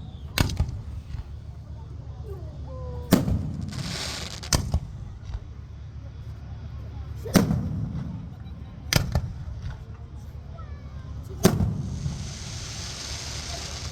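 Aerial fireworks shells bursting: about six sharp booms, one every one to three seconds, each trailing off in a low rolling echo. A hiss of crackle comes in near the end.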